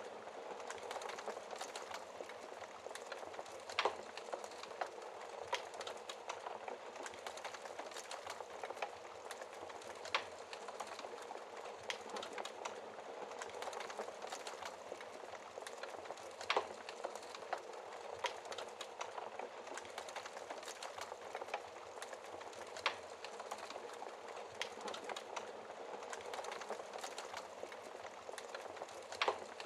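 Wood fire in a fireplace burning steadily, with a constant soft crackle and a few louder pops spaced several seconds apart.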